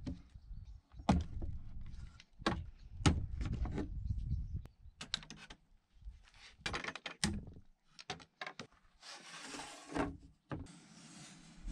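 Pine tongue-and-groove boards and plastic-handled quick-release bar clamps being handled and fitted: a series of knocks and clicks, some in quick clusters, then a longer scrape of wood sliding on wood about nine seconds in.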